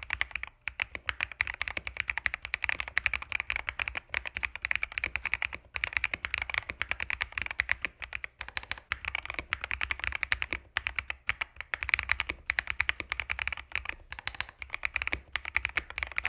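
Fast, continuous typing on a mechanical keyboard fitted with fully hand-lubed Owlab London Fog switches. The keys clack densely, with a few brief pauses between runs.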